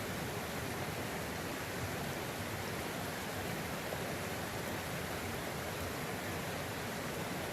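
River water rushing past in a steady, even flow.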